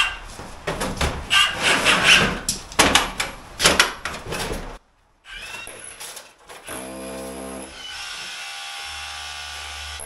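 Irregular clattering and knocking of tools being handled and pulled out of the back of a van for about five seconds. After a brief drop to silence, steady background music with guitar comes in.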